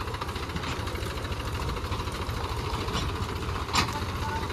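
Mahindra tractor's diesel engine running at low speed while towing a loaded trailer, a steady low chugging, with one sharp click near the end.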